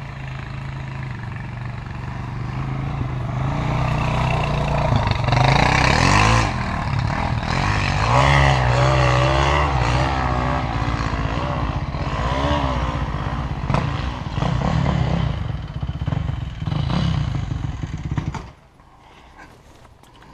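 Enduro dirt bike engine heard close up from the rider's helmet, revving up and down over and over as the bike is ridden along a rough trail. Near the end the engine sound drops away suddenly.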